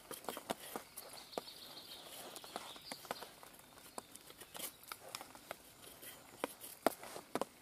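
Bushcraft knife shaving curls off a thin split-wood stick to make a feather stick: about a dozen short, irregular scraping strokes, each ending in a sharp click as the blade runs off the wood.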